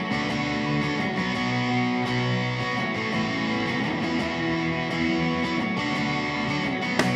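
Music: an electric guitar passage with chords ringing out over a steady backing, with no vocals.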